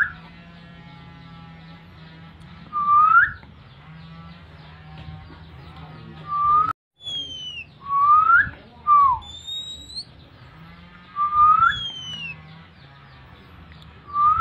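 Loud whistled call notes, each a short quick upward slide, repeated about every two to three seconds, with one falling note near the middle. This is the kind of whistle used to call and excite an Oriental magpie-robin (kacer) in breeding condition.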